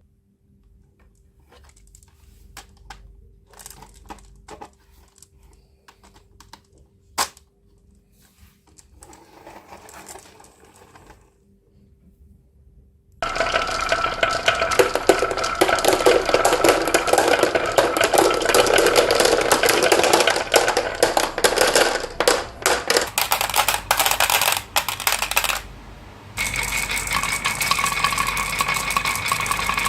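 Marbles clicking down a marble run, a few scattered clicks at first, then about 13 seconds in a sudden dense, continuous clatter as many marbles rattle down the tracks together.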